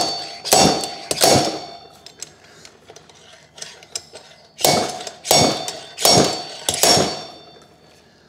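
Slide hammer on a blind bearing puller striking steel on steel, each blow a sharp clang with a short metallic ring. There are three blows at the start and a pause with light clicks, then four more blows about two-thirds of a second apart. The hammer is being used to work a stuck bearing up out of its bore.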